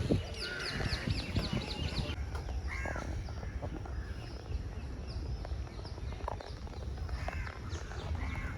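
Birds calling outdoors: a quick run of about eight high, falling chirps in the first two seconds, then a few separate calls spaced through the rest, over a steady low rumble.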